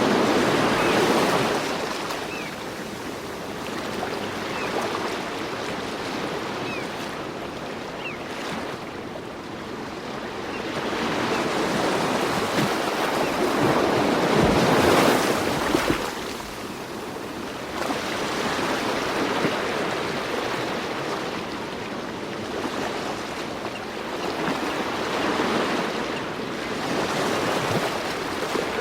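Ocean surf: waves wash in and draw back in slow swells, with three surges roughly twelve seconds apart.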